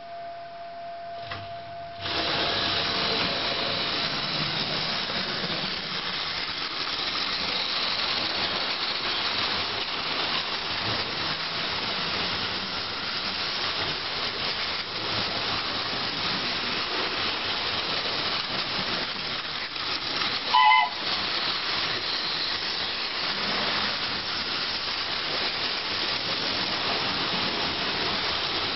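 Hornby model steam locomotive running with a steady hiss that starts suddenly about two seconds in. A short whistle sounds about two-thirds of the way through.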